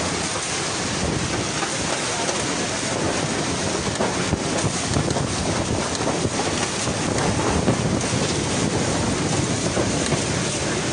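Typhoon wind and driving rain blowing hard, buffeting the phone's microphone, with stronger gusts about midway through.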